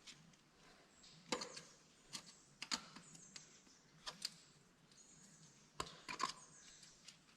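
Steel ice-axe picks and crampon points tapping and scraping on rock during a drytooling climb: about seven short, sharp metallic clicks at irregular intervals, a pair of them just after the sixth second.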